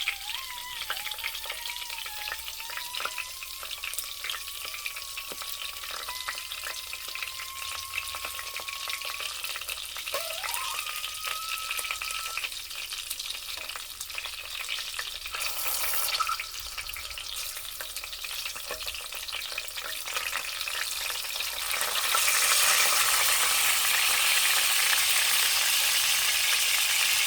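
Sausages frying and sizzling in a pan, with thin whistling squeals that slide slowly in pitch through the first half. The sizzle turns louder about five seconds before the end.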